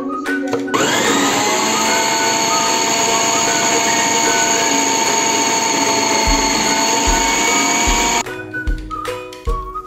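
Food processor motor spinning up about a second in with a rising whine, then running steadily while shredding carrot and cabbage, and cutting off near the end. Background music with a beat plays before and after it, and the beat can be heard faintly under the motor.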